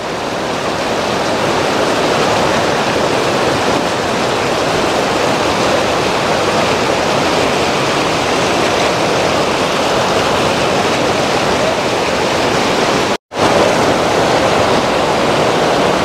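Rushing water of river rapids pouring over flat rock at a waterfall, a loud, steady roar close by, with a brief silent gap about thirteen seconds in.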